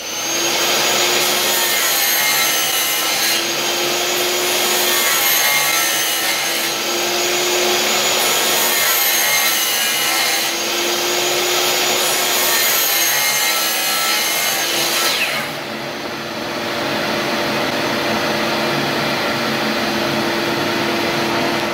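DeWalt DW715 12-inch chop saw (compound miter saw) running continuously while slicing a series of closely spaced kerfs into a laminate flooring plank to notch it out. Its motor gives a steady hum and high whine that waver slightly as it cuts, and the sound becomes somewhat quieter about fifteen seconds in.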